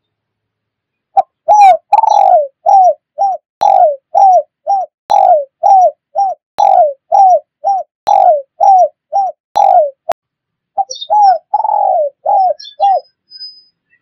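Spotted dove (tekukur) cooing, played as a lure call: a quick run of short coos, each falling in pitch, beginning about a second in. There is a brief pause after about ten seconds, then a few more coos.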